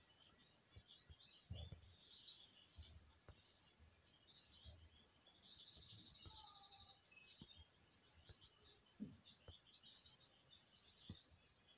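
Faint chirping of small birds: many short high chirps, with a rapid trill of repeated notes about six seconds in. Soft low thumps and rustles of handling come and go underneath.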